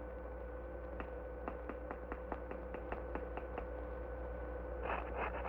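A run of sharp clicks or taps, a few tenths of a second apart, over a steady hum; the clicks grow quicker and louder near the end.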